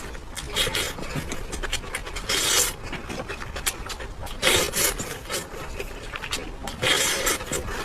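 Close-up eating sounds: chewing and mouth noises with many small clicks, and four louder noisy swells spread through.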